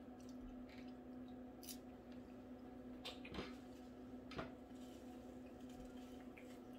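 Quiet eating sounds: a person chewing, with a few soft mouth clicks and smacks about three and four and a half seconds in, over a steady low hum.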